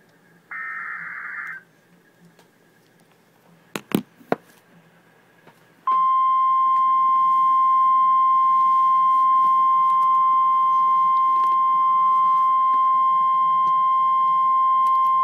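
Emergency Alert System warning opening: a one-second screechy burst of data-header noise near the start, a few sharp clicks, then the steady high-pitched alert attention tone comes on about six seconds in and holds. The tone signals that a severe thunderstorm warning message follows.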